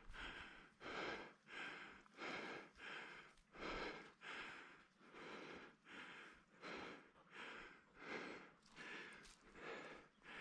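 Heavy, rhythmic breathing close to the microphone, about two breath sounds a second, each a short rush of air.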